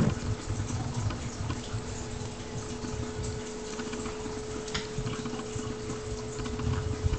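Two seven-week-old Newfoundland puppies wrestling on a vinyl floor: irregular scuffling, bumping and mouthing noises with scattered clicks. A steady hum runs underneath.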